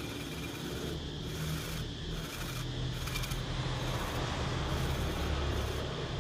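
Cordless drill running steadily as a large cutter bores out the bearing seat in a fan motor's end cover, the bit gradually biting into the housing. The seat is being enlarged so that a ball bearing can replace the fan's original bushing.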